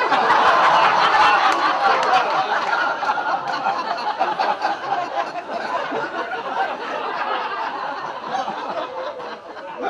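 Audience laughing at a punchline: a burst of many people's laughter that starts suddenly, is loudest for the first couple of seconds, then slowly dies down.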